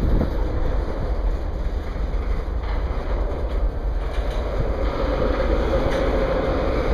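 Tank cars of a freight oil train rolling past: a steady rumble of steel wheels on rail with a few sharp wheel clicks, and a steady tone that grows stronger in the last couple of seconds.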